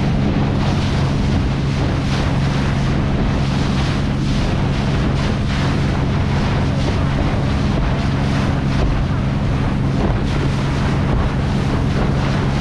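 Motorboat under way on open ocean: a steady low engine drone under wind buffeting the microphone and the rushing hiss of water against the hull.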